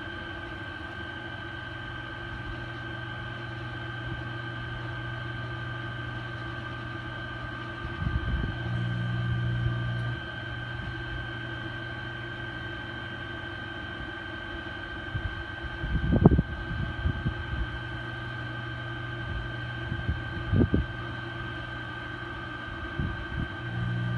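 HVAC unit running with a steady low hum and a high whine. The low hum grows louder for a second or two, twice, and a few low bumps come about two-thirds of the way through.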